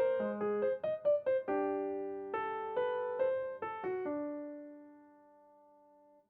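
Background music: electric piano playing a gentle melody, ending on a chord that rings out and fades away about four seconds in.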